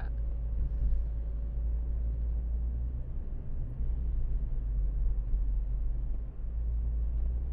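Steady low road-and-drivetrain rumble with tyre noise inside the cabin of a moving 2012 Ford Focus.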